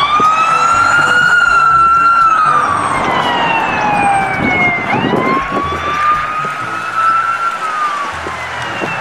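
Police siren wailing in slow, long sweeps. The pitch falls gradually over several seconds, jumps back up about five seconds in, and glides again.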